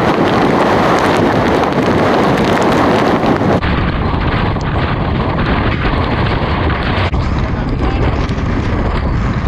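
Storm surf and strong wind, a loud, steady rush of noise. About three and a half seconds in it changes to heavy wind buffeting the microphone, deep and gusty, over the wash of surf.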